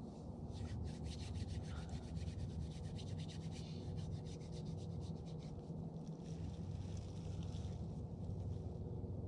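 Hands rubbed briskly together close to the microphone: a fast, even run of scratchy strokes, several a second, that stops about a second before the end, over a low steady rumble.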